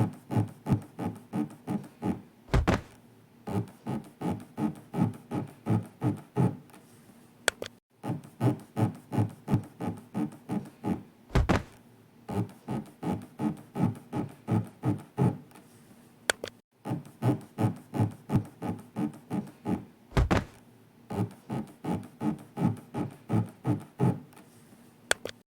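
A looped 'zuri-zuri' rubbing sound effect that paces elevator breathing: rapid short scraping strokes at about four a second, broken by a heavy low thud a few seconds into each cycle. The cycle repeats about every nine seconds, with a brief pause between cycles.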